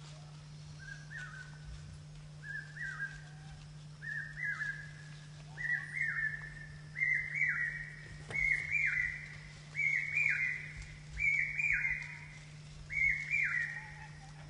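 Common hawk-cuckoo (brainfever bird) calling: a series of shrill whistled phrases of two or three notes each. About nine phrases come roughly a second and a half apart, each a little higher and louder than the last.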